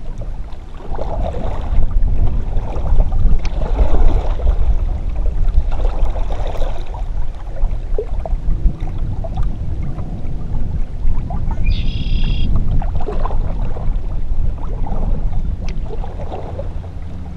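Kayak paddle strokes, the blades swishing and splashing in the water every couple of seconds, over a heavy low rumble of wind on the microphone.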